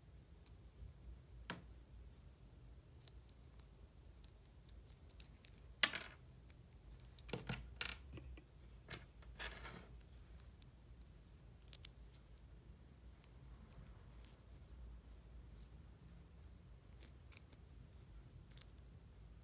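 Faint handling of a chocolate's packaging: scattered small clicks and short scratchy rustles, with a few louder scrapes about a third to half way through.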